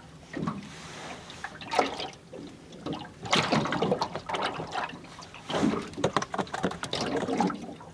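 Water lapping and splashing against a small boat's hull in irregular bursts.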